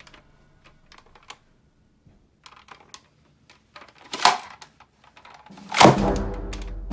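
Hard plastic toy blasters being handled: light clicks and knocks, then two louder noisy bursts about four and six seconds in. Orchestral music with timpani comes in near the end.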